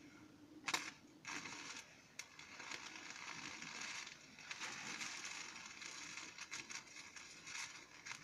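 Stick-welding arc crackling as a 2 mm electrode, fed straight from 24-volt solar panels at about 30 amps, burns against steel. It starts with a sharp snap under a second in and then crackles irregularly with small pops.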